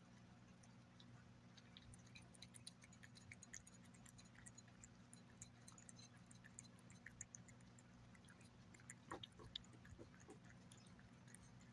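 Gray tabby cat licking and chewing wet turkey pâté: faint, quick wet clicks and smacks starting about two seconds in, a few louder ones around nine seconds in, over a low steady hum.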